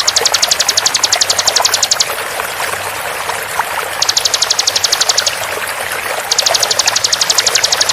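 Bar-winged prinia (ciblek) rapid-fire trill: a fast run of high, evenly repeated notes, about a dozen a second, in three bursts of one to two seconds. Underneath is the steady rush of running water.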